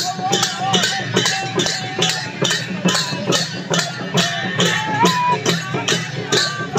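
Sakela dance music: brass hand cymbals clashing in a quick, steady beat, with voices from the dancing crowd over it.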